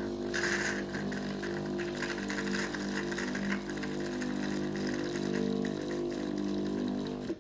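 Philips automatic coffee machine running with a steady, buzzing hum and a light crackle over it, which stops abruptly near the end.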